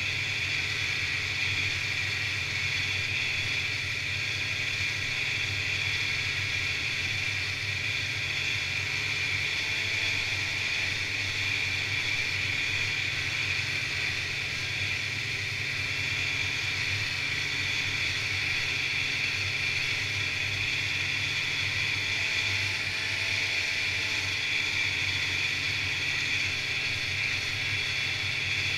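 Snowmobile running at a steady cruising speed, heard from the rider's seat: a constant engine drone under a strong, even high hiss.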